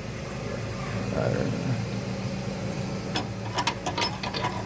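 Hand tools working on a car's sway bar end link: a quick run of sharp metallic clicks about three seconds in, over a steady low hum.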